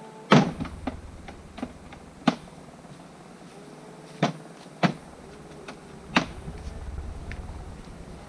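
Irregular sharp knocks and clunks from a rider moving about on a parked quad bike and climbing off it, about seven in all, the loudest about half a second in. A low rumble runs underneath.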